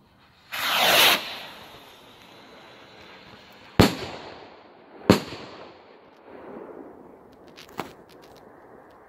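Twin burst firework rocket launching with a loud rushing whoosh, then two sharp bangs about 1.3 seconds apart as its two bursts break, each trailing off. A smaller crack comes near the end.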